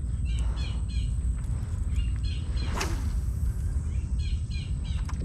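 Crows calling over and over in short runs of three or four calls, over a steady low rumble. About three seconds in comes a single sharp swish.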